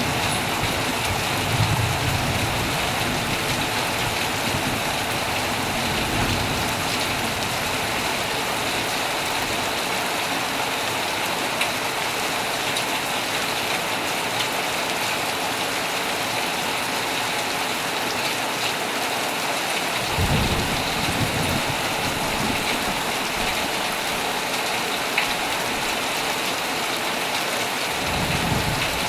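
Heavy rain falling steadily on a tent, with low rumbles of thunder: one a second or two in, a weaker one around six seconds, a stronger one about twenty seconds in, and another near the end.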